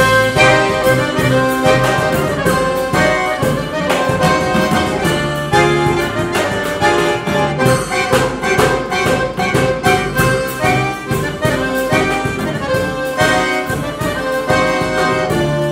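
Live instrumental trio: an accordion carrying the melody over a plucked double bass and a drum kit keeping a busy, steady beat of drum and cymbal strokes.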